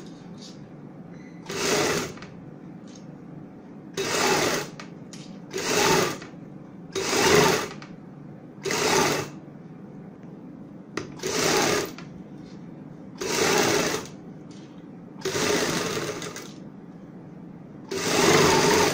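Sewing machine stitching in about ten short runs, each half a second to a second long, with brief pauses between them as fabric folded over buckram is sewn along its edge.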